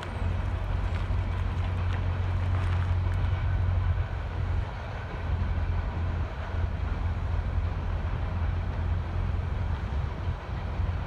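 Coal train's hopper cars rolling past at a distance, a steady low rumble of wheels on rail.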